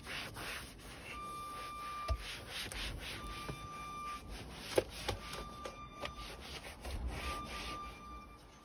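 Cloth rubbing and wiping across leather car-seat upholstery in a quick run of short strokes, with a couple of light knocks partway through. A thin tone repeats about every two seconds.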